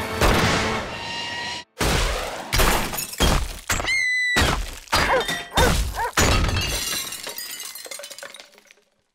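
Cartoon crash sound effects: a string of loud smashes and breaking with glassy shattering, and a short squeaky whistle about four seconds in. Before the crashes a steady rushing noise cuts off suddenly.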